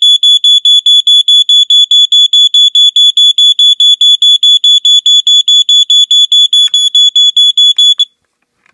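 Smoke alarm's piezo horn sounding on test: a loud, high-pitched beep pulsing rapidly, about six times a second, that cuts off suddenly near the end, with some light handling clatter just before it stops.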